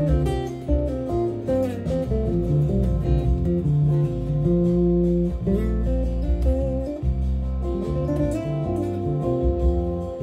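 Music played on a plucked string instrument: a continuous line of single notes and chords over sustained low notes.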